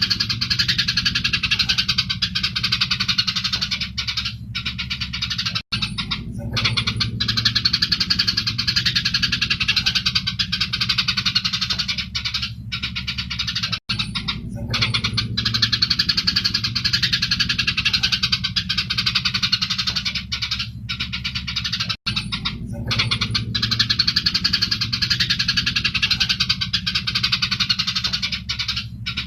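Eurasian tree sparrows chirping rapidly and continuously in an agitated 'fighting' chatter. The recording is looped, repeating about every eight seconds with a brief dropout between repeats, over a steady low hum.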